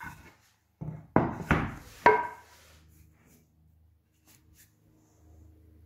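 Walnut and cherry boards being flipped over and set down on a workbench: four wooden knocks within about a second, the last the loudest with a brief ring, then faint handling clicks.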